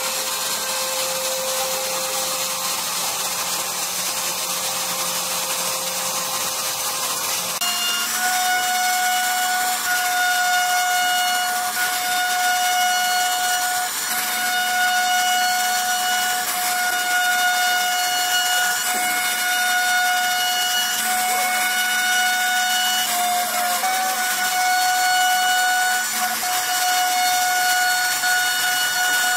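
CNC router spindle running with its bit cutting into hardwood, a steady high-pitched whine over the hiss of the cut. About eight seconds in, a lower steady hum changes suddenly to the higher whine.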